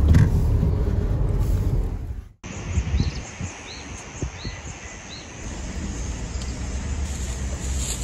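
Suzuki Hustler kei car moving slowly, a steady low rumble heard from inside the cabin. About two and a half seconds in, the sound cuts to quieter open-air ambience with light wind and four short high chirps about half a second apart.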